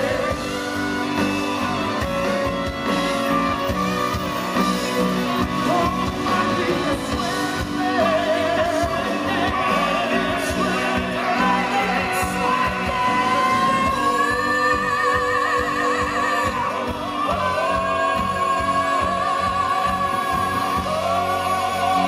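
A male voice sings a Spanish ballad live into a microphone over band accompaniment, with long held notes wavering in vibrato in the second half.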